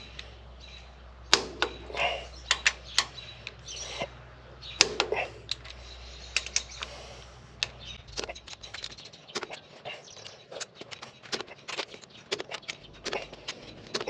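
Irregular sharp metallic clicks and clinks of a ratcheting torque wrench and socket working the head stud nuts on a Ford 460 V8.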